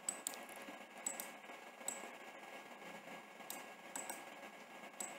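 Computer mouse clicks: about eight short, sharp clicks spaced irregularly, over faint steady hiss.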